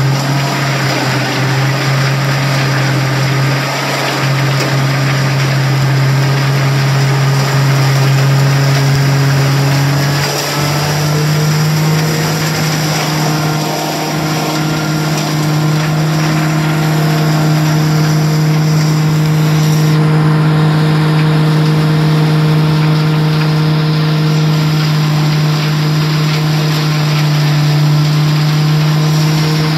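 Vermeer CPX 9000 bale processor, driven off a John Deere 6125R tractor's PTO, grinding a cornstalk bale and blowing the chopped stalks out: a loud, steady machine drone with a rushing noise over it. Its pitch steps up slightly about ten seconds in.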